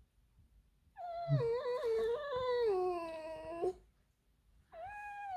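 Pet fox giving long, wavering squealing calls, two in a row with a short gap: the defensive squeal a fox makes when a person comes too close to her territory.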